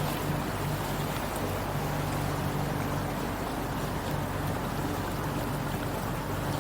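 Motorboat engine running steadily at cruising speed, with a constant low hum and water rushing along the hull.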